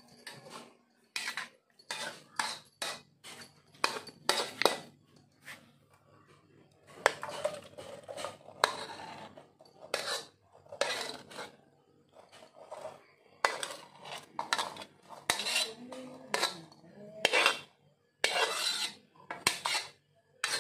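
Spatula scraping and clacking against a pan of stir-fried morning glory, in irregular strokes: some quick knocks, some longer scrapes.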